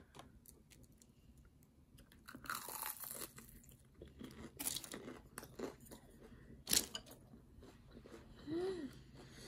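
Crunching of freshly fried shrimp tempura batter being bitten and chewed, in several bursts of crisp crackling with the loudest crunch about seven seconds in.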